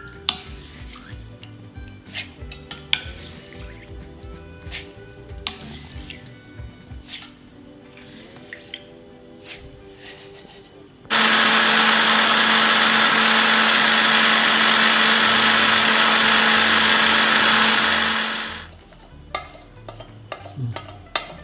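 Wooden spoon scooping soaked ragi, rice and urad dal into a steel mixer-grinder jar, with light knocks and clicks on the steel. About eleven seconds in, the electric mixer grinder starts abruptly and runs loud and steady for about seven seconds, grinding the soaked grains into dosa batter, then winds down. A few scrapes and taps follow as the batter is spooned out of the jar.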